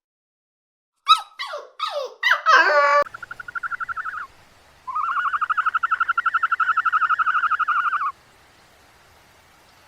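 Animal calls: a few short squeaky yelps, then two rapid pulsed trills, a short one and a longer one lasting about three seconds.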